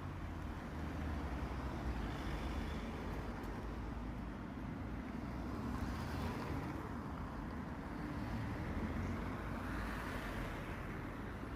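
Steady outdoor background noise with a low rumble and no siren tone.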